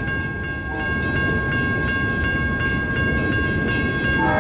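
Loaded freight flatcars rolling past: a steady rumble of steel wheels on rail with regular wheel clicks and a few thin, steady high ringing tones. A train horn starts faintly near the end.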